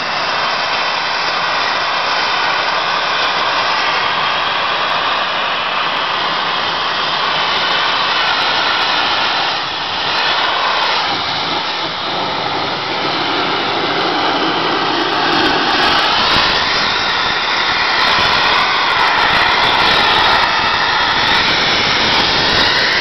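Sandblaster nozzle blasting the painted numbers off Pere Marquette 1225's steam locomotive cab: a loud, steady hiss of compressed air and abrasive, dipping briefly about ten seconds in.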